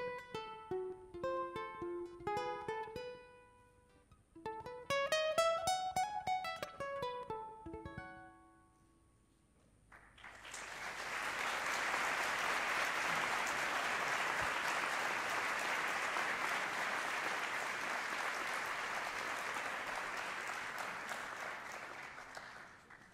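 A braguinha, the small Madeiran forerunner of the ukulele, plucked in single ringing notes, ending with a rising run of notes that dies away about eight seconds in. After a short pause, an audience applauds for about twelve seconds.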